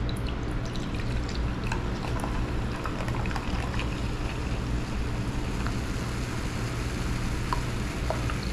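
Cola poured from a plastic bottle into a glass measuring cup: a steady pouring stream, with scattered small crackles of carbonation fizzing as a foamy head builds in the cup.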